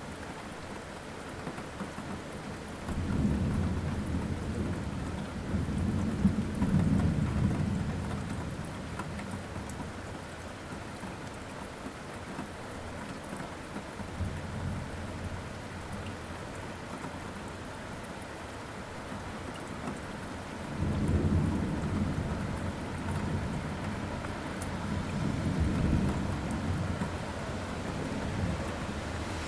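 Thunderstorm: steady rain hiss with two long low rolls of thunder, the first about three seconds in and the second about twenty-one seconds in.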